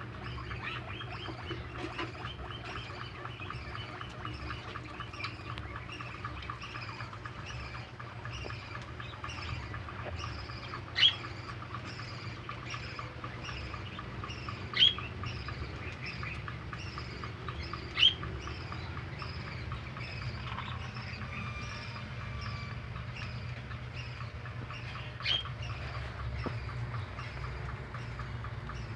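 A bird chirping over and over at an even pace, nearly twice a second, over fine rapid crunching from baby rabbits chewing fresh vegetables. A few sharp, loud clicks stand out.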